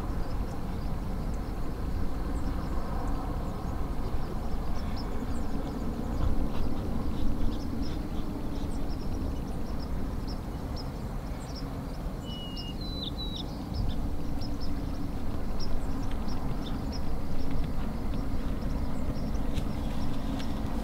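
Steady low outdoor rumble with small birds chirping now and then, and a short whistled bird call a little past the middle.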